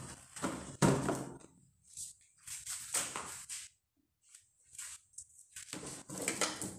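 Unboxing: a cardboard box and moulded pulp packaging being handled on a tabletop, with a sharp knock about a second in, then a few shorter scrapes and rustles, and plastic wrap crinkling near the end.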